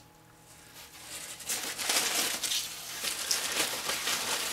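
Crumpled packing paper rustling and crinkling as a hand pushes and pulls it aside. It starts about a second in and goes on irregularly.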